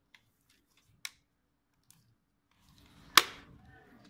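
Plastic snap clips of a DPVR VR headset releasing as its parts are pried apart by hand: a few faint clicks, then one loud sharp snap about three seconds in, followed by the rustle of plastic being handled.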